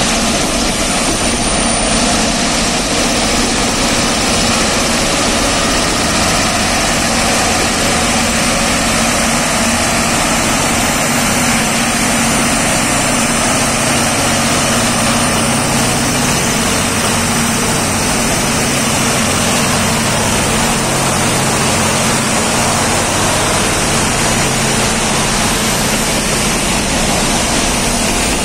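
Freight train rolling past: a steady heavy rumble of boxcars and hoppers on the rails, with the diesel engines of a set of G22UB helper locomotives in mid-train droning past from about twelve seconds in until about twenty-four seconds, before the wagons' rumble alone returns.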